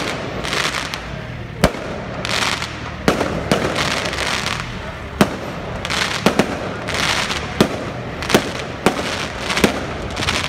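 Aerial firework shells bursting in a string of sharp bangs, roughly one a second at irregular spacing, with crackling and hissing from the glittering stars in between.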